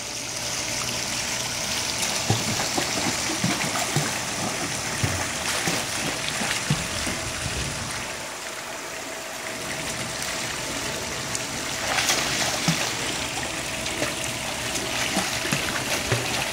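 Swimming pool water running steadily, like water spilling from the pool's wall water features, with scattered light splashes from a child swimming.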